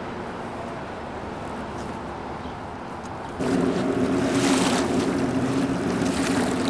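Wind on the microphone and lake water lapping at the shore, under a steady low hum; it all gets louder about three and a half seconds in.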